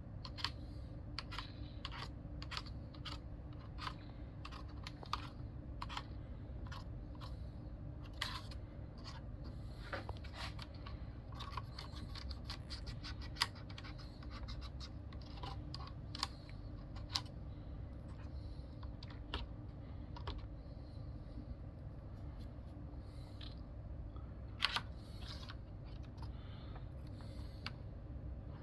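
Irregular plastic clicks and light scraping from a mechanical keyboard's keycaps and switches being handled, over a steady low hum.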